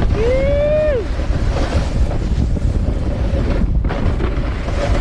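Wind rushing over an action camera's microphone while snowboarding fast downhill, a steady heavy buffeting. Near the start a short high voice call rises, holds and drops away.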